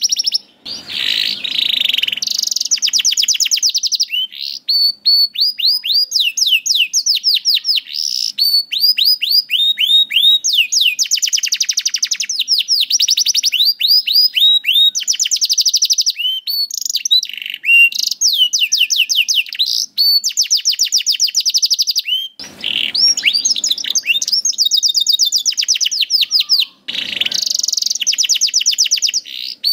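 Domestic canary singing a long, continuous song of rapid trills: each phrase is a fast run of identical repeated notes, which then switches to a new note type every few seconds. A few harsher, noisier notes break in now and then.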